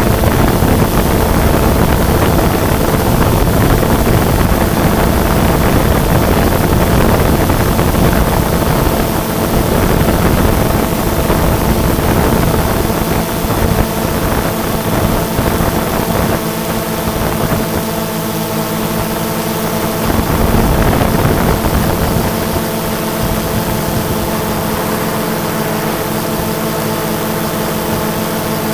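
Multirotor drone's motors and propellers running steadily, a whine of several held tones over a hiss, with wind rumble on the microphone that eases after about 16 seconds.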